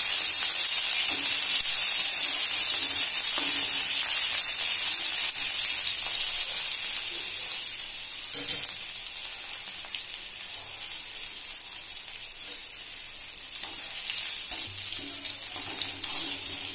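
Garlic cloves, green and dried red chilli and panch phoron sizzling in hot oil in a steel kadai, stirred now and then with a spatula. The sizzle is louder for the first several seconds, eases off in the middle and picks up again near the end, with a single click of the spatula about halfway.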